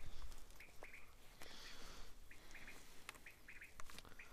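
Common quail calling: faint groups of two or three short, high chirps, repeating about once a second, with a few soft clicks from movement through the grass.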